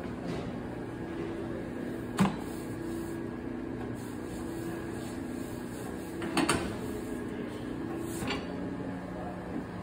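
Wakadaisho udon-making machine running with a steady motor hum whose pitch shifts about two seconds in and again near the end, with three sharp knocks, the loudest about two seconds in.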